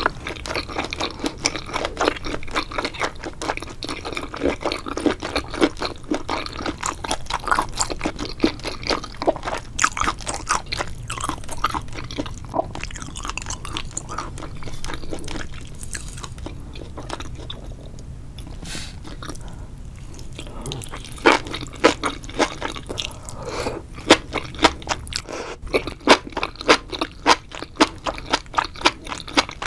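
A person chewing and crunching mouthfuls of sauced enoki mushrooms up close, a rapid run of wet, crunchy chews. They ease off for a few seconds past the middle, then come back louder and evenly paced near the end.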